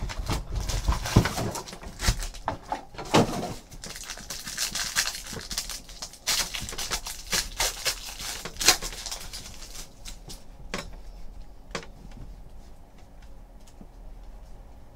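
Handling of a trading-card hobby box and its foil packs: cardboard flaps opening, then foil wrappers crinkling and tearing, a dense run of sharp crackles and rustles. About ten seconds in it thins out to a few soft clicks as the cards are flipped through.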